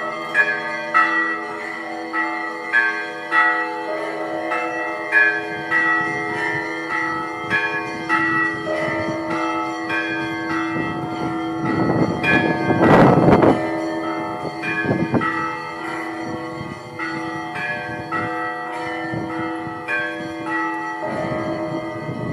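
Russian Orthodox church bells ringing: several bells of different pitches struck in a quick repeating pattern, about two strokes a second, over the lasting hum of a deeper bell. A loud rush of noise swells and fades around the middle.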